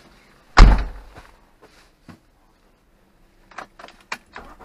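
A car door shuts with a loud thud about half a second in. Near the end there are light clicks and a rattle of keys as the ignition key goes into the Ford StreetKa's ignition lock.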